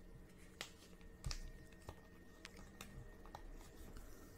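Faint, scattered clicks and light plastic rustles of a trading card being handled and slid into a clear plastic penny sleeve, about five separate clicks over a few seconds.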